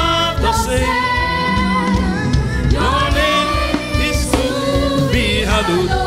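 Gospel worship music: a singer holding long notes that slide up and down in pitch, over a steady instrumental backing.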